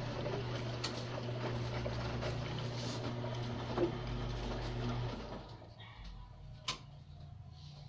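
Washing machine on its wash cycle: the drum motor runs with a steady low hum, stops about five seconds in, and a single sharp click follows a little later.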